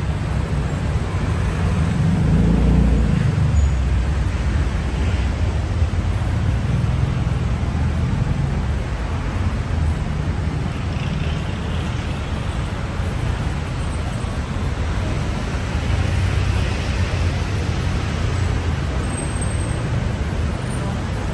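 Street traffic: engines of passing vehicles running steadily, with one passing close and loudest about two to four seconds in.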